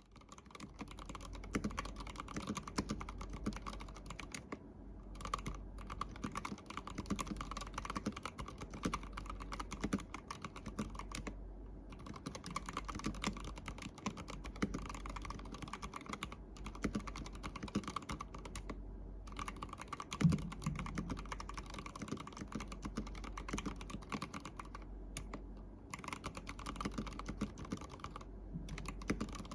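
Fast, continuous typing on an ABKO Hacker ADK05 mechanical keyboard with red linear switches, an acrylic case and clear ice-cube keycaps. The rapid key clacks stop briefly a few times, and one louder thump comes about twenty seconds in.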